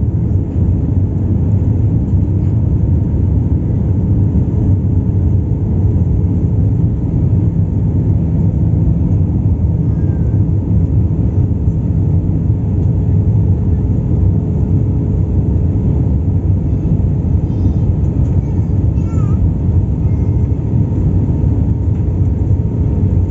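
Steady cabin noise of an Airbus A320 in flight, heard from a seat over the wing: a deep, even rumble of engines and rushing air with a faint steady hum.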